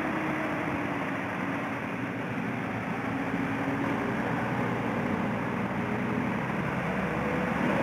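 Heavy diesel trucks and a minibus climbing a hairpin bend, engines running under load with a steady rumble and a faint whine that drifts in pitch.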